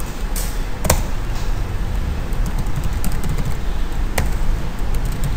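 Computer keyboard typing: a few scattered key clicks, the sharpest about a second in and again near four seconds, over a steady low hum.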